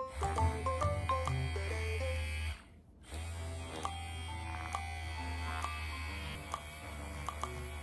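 Small battery-powered handheld vibrating massager buzzing steadily while pressed and slid over a shirt on the shoulder. The buzz breaks off for about half a second near the middle, then carries on.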